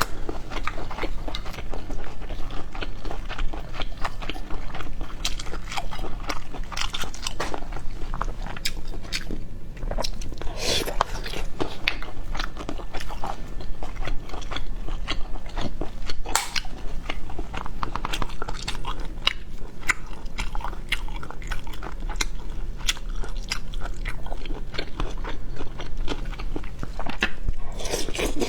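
Close-up eating of boiled snails: steady chewing with many short, sharp clicks scattered through it.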